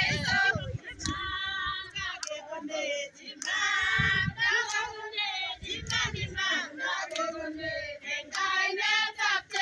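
A group of men and women singing together, several voices at once, in phrases broken by short pauses.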